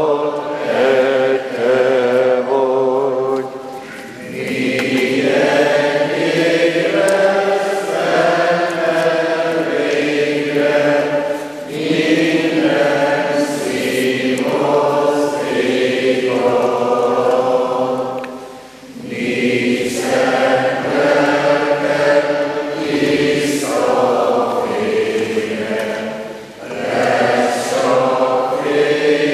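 Church congregation singing a slow hymn in long held notes, pausing briefly between lines about every seven seconds.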